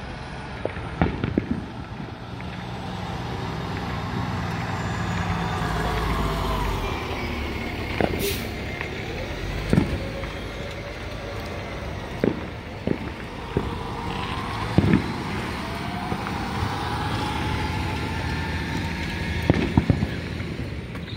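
Vehicle engines running and passing on the street, with a steady low hum that rises and falls. Firework bangs go off among them, about ten sharp cracks scattered through.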